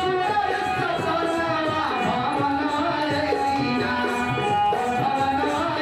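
Devotional Shiv bhajan music: a melody of held notes that step up and down, over steady tabla-style hand-drum playing, in the pause between sung lines of the chant.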